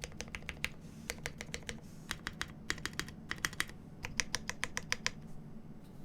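Typing on a GEON F2-84 mechanical keyboard with Krytox-lubed Cherry Top SP Star switches on 62 g springs, an aluminium plate and G81-3100 keycaps: quick runs of keystrokes with short pauses between them, stopping a little after five seconds in.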